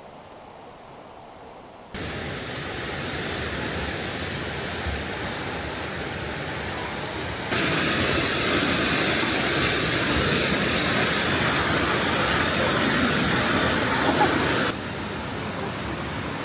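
Steady rushing of a fast, rocky mountain stream. It jumps louder about two seconds in and again midway, then drops back near the end.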